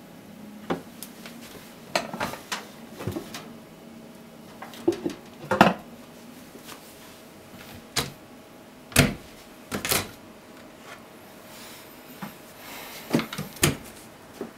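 Kitchen clatter: irregular knocks and clinks of dishes and utensils being handled, some of them sharp, over a faint steady hum.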